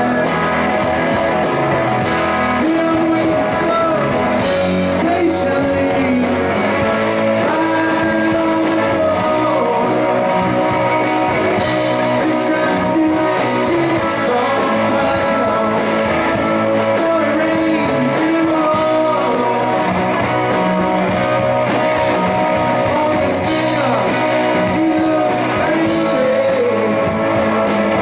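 Live rock band playing a song: electric and acoustic guitars, with a man singing over them.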